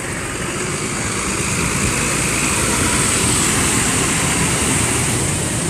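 A bus engine runs as the bus moves past, with a hiss that swells towards the middle and then eases off.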